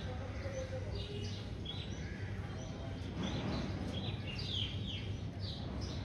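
Parrots in a tree giving a string of short, sharp calls, each falling in pitch, coming thicker about halfway through.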